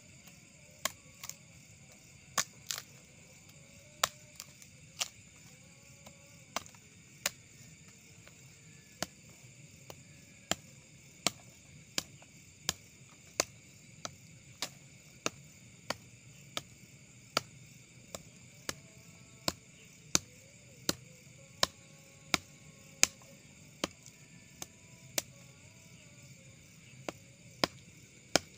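A hand-held blade chopping branches: sharp, unevenly spaced strikes, a little over one a second, over a steady high chorus of night insects.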